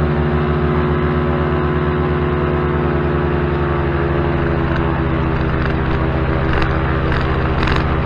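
Bailey V5 four-stroke paramotor engine and propeller running steadily during a trike takeoff attempt, its pitch wavering slightly, with a few sharp clicks near the end.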